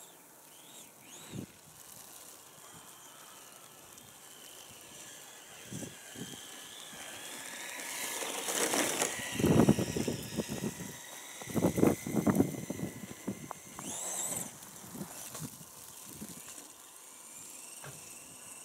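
Electric motor and drivetrain of a Traxxas Slash RC truck whining as it speeds up and slows down, driving on snow with paddle tires; the sound swells loudest several times in the middle, with a rising whine a little later.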